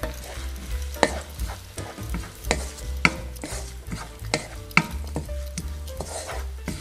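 Wooden spoon stirring minced beef and chopped onion frying in a nonstick pan: a light sizzle broken by knocks and scrapes of the spoon against the pan, roughly one every half to three quarters of a second.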